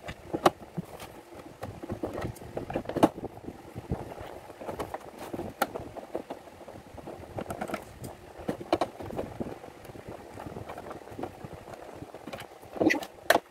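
Phillips screwdriver backing screws out of the plastic base of a bread maker, with scattered small clicks and taps of the tool and screws on the plastic casing and a louder knock near the end.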